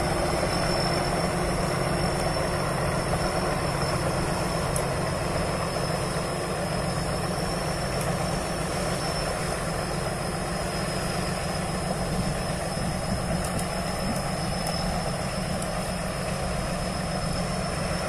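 Rice combine harvester's diesel engine running steadily as the machine drives along, with a steady high whine over it.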